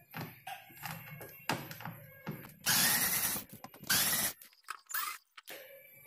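Cordless electric screwdriver running in two short bursts about three and four seconds in, backing a screw out of a washing machine's plastic back cover. Light clicks and taps of handling come before.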